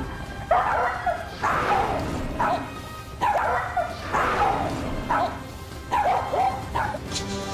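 Bedlington terrier barking aggressively in repeated outbursts, about one a second, while lunging at another dog.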